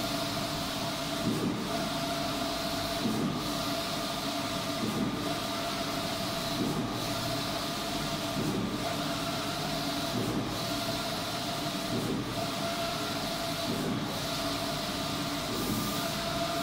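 Wide-format inkjet printer running a print job, its print-head carriage sweeping back and forth across the banner with a steady hiss and hum. The carriage reverses about every two seconds, each turn marked by a short low knock.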